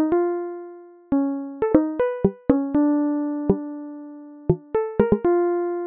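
Background music: a slow keyboard melody of single struck notes, each ringing on and fading away before the next.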